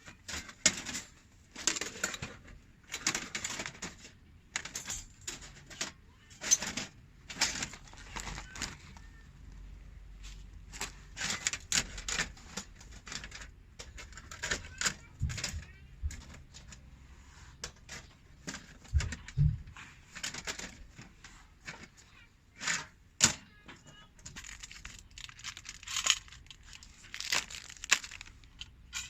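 A string of irregular scraping, rustling and clinking handling sounds, each lasting well under a second to a couple of seconds, with a few dull low thumps midway.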